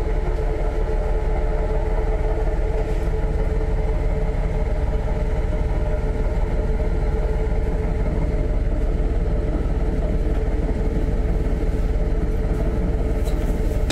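A Noto Railway diesel railcar's engine running steadily, heard from inside the passenger car: a loud, unchanging low drone with a constant hum over it.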